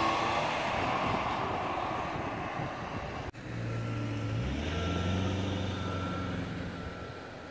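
Traffic noise from a passing vehicle fades away. Then, after a sudden cut, a vehicle's reversing alarm beeps about once a second, with a heavy engine running under it for a few seconds.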